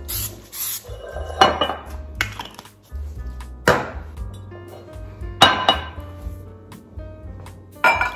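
Aerosol cooking spray hissing briefly into a ceramic loaf pan, then about five separate clinks and knocks of kitchenware set down on a stone countertop.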